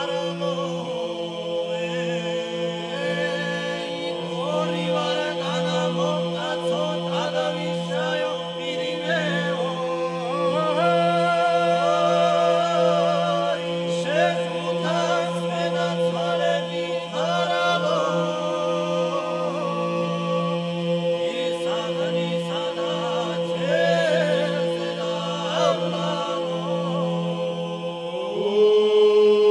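Georgian male ensemble singing a traditional polyphonic folk song a cappella: the bass section holds a steady drone while ornamented upper voices wind above it. Near the end the harmony shifts upward to a new chord and grows louder.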